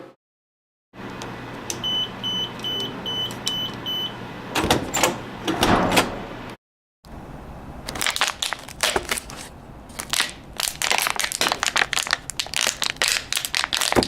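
Six short electronic beeps at one high pitch, evenly spaced about half a second apart, followed by a few sharp clicks. After a brief gap comes a long, irregular run of rapid clicks and knocks.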